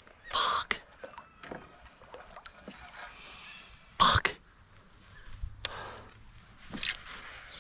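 A few short knocks and scuffs from fishing gear being handled in a plastic kayak, the loudest about four seconds in.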